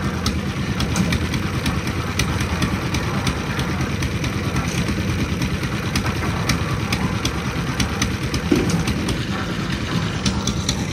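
An engine running steadily at a constant speed, with frequent sharp clicks and knocks over it.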